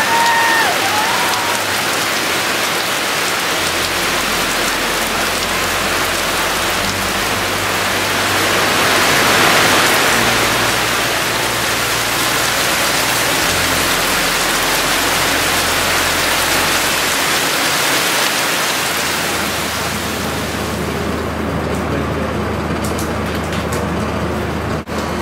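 Heavy rain pouring down on foliage and the roof, with water running off the roof edge in streams: a steady, loud rain hiss. About three-quarters through, the hiss turns duller as its high end falls away.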